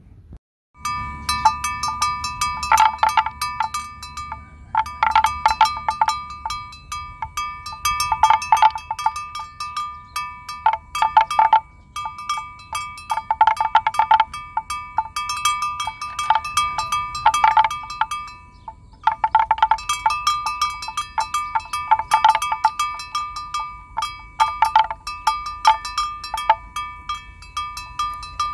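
Bells jingling and clanking in irregular clusters over a steady ringing at two close pitches. The ringing starts abruptly about a second in and breaks off briefly twice.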